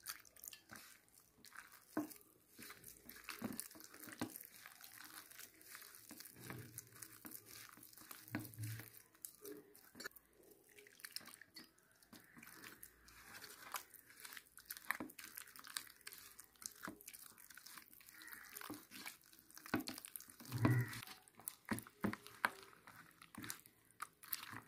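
A bare hand squishing and kneading flour and water into thick batter in a steel plate: irregular wet squelching and crunching, with a couple of louder thuds.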